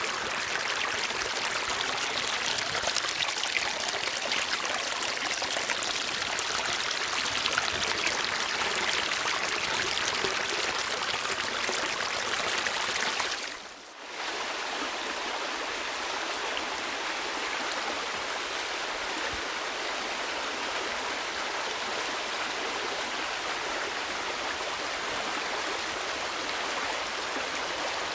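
Steady rushing of running stream water. About halfway through it fades down for a moment and comes back slightly lighter, as if a new recording were taking over.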